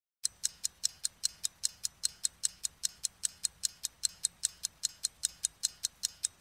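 Rapid, perfectly even ticking, about five ticks a second, like a clock's.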